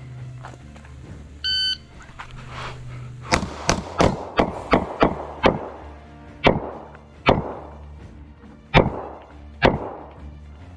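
Electronic shot timer beeps once about a second and a half in, starting the stage. Then pistol shots ring out: a quick string of about seven, followed by several more spaced a second or so apart.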